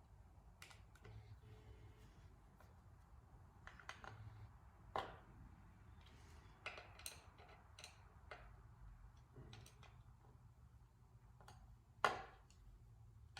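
Quiet, scattered light clicks and knocks of small chainsaw parts and tools being handled during assembly. The two sharpest knocks come about five seconds in and about twelve seconds in.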